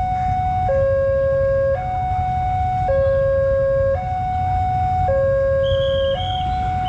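Railway level-crossing warning alarm sounding a two-tone high–low signal, each note held about a second, warning that a KRL Commuter Line train is approaching. A low rumble runs underneath, and a thin high tone comes in twice near the end.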